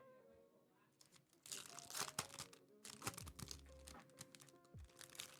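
Trading-card pack wrapper being torn open and crinkled: a run of irregular ripping and crackling that starts about a second and a half in, over faint background music.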